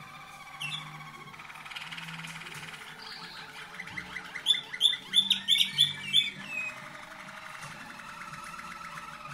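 Waterslager (Malinois) song canaries singing: long rolling, bubbling trills, with a louder run of sharp repeated notes, about six a second, in the middle.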